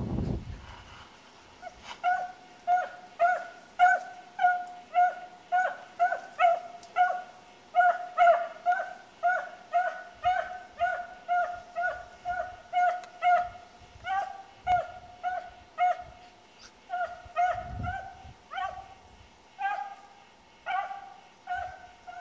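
Beagle baying on the track of a hare: a steady run of short, pitched barks, about two a second, the hound giving voice as it follows the scent.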